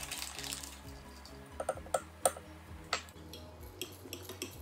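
Metal spoon clinking against a glass measuring jug: a few separate ringing taps, then a quick run of small clinks near the end as it stirs corn flour into yogurt. Background music plays under it.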